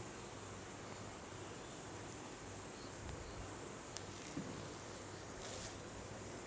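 Hands massaging a head and hair: faint rustling over a steady hiss, with two small clicks about four seconds in and a brief rustle soon after.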